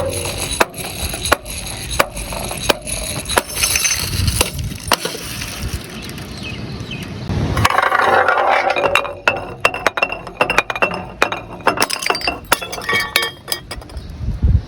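Glass bottles tumbling down stairs, clinking and knocking against the steps in a run of sharp hits. A dense burst of crashing glass comes about eight seconds in, followed by rapid clattering.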